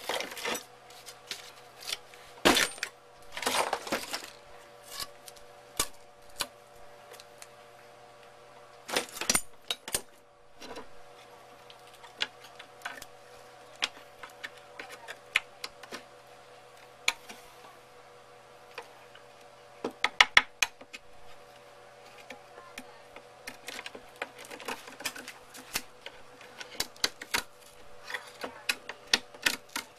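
Hand tools and PVC pipe being picked up, moved and set down on a workbench: scattered clicks, clinks and knocks, loudest in a few clusters, over a faint steady hum.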